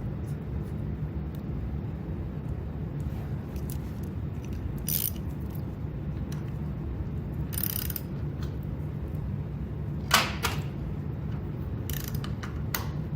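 Hand tools on the nut that holds the timing advance of a 1978 Honda Trail 90's points assembly: scattered metallic clicks and short ratcheting rasps as the nut is run down and snugged, the sharpest about ten seconds in. A steady low hum runs underneath.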